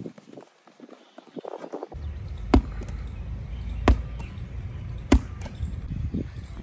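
A medicine ball thrown hard against a concrete wall: three sharp thuds about a second and a quarter apart, over a steady low rumble.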